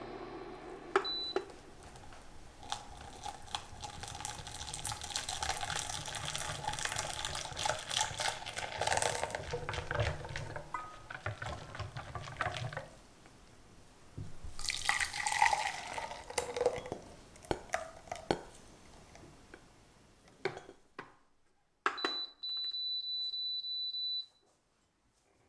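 Silicone-coated whisk beating a thin, frothy custard mixture in a glass bowl: liquid sloshing with quick clicks against the glass. Near the end an induction cooktop gives a steady high beep lasting about two seconds.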